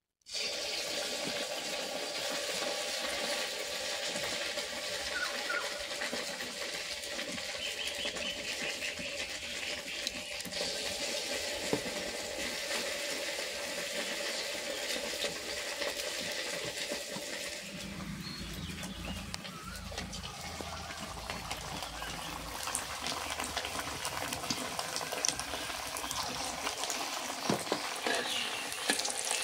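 Rice vadas deep-frying in hot oil: a steady sizzle.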